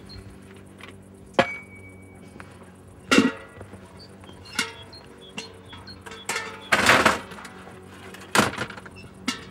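A garden gate being lifted and swung open, and garden tools being handled: a series of separate knocks and metallic clinks, one with a short ring about a second and a half in, and the loudest about seven seconds in. A low steady drone runs underneath.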